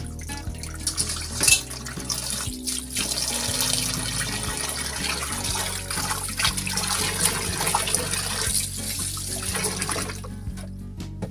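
Tap water running and splashing into a stainless steel sink while hands rinse and squeeze raw beef cubes in a metal colander, with wet sloshing of meat and water. The water eases off near the end.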